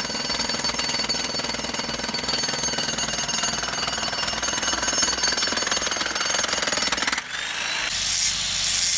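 Jackhammer hammering rock continuously in a rapid, even rattle. About seven seconds in it briefly drops, and a different pulsing hammering follows.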